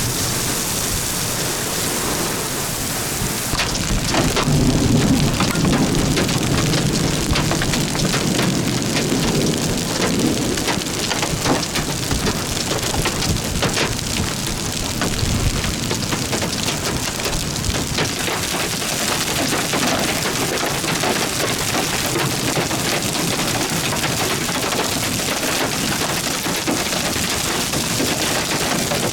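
Heavy thunderstorm rain pelting down, full of sharp ticks of drops striking a surface. A low rolling rumble of thunder comes in about four seconds in and dies away after several seconds.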